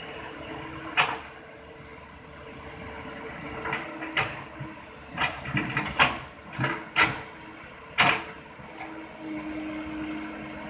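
Toy excavator and toy trucks being handled and knocked together: a run of sharp clicks and knocks, bunched between about four and eight seconds in, over a faint steady hum.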